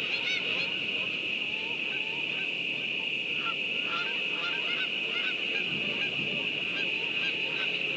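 A flock of geese honking in flight, many short overlapping calls that come thickest in the middle. A steady high-pitched tone sounds underneath.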